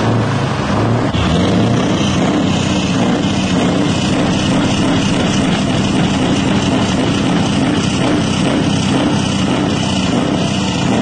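Diesel engine of a blue Scania R-series truck running steadily at its side-exit exhaust pipe, a deep, even exhaust note.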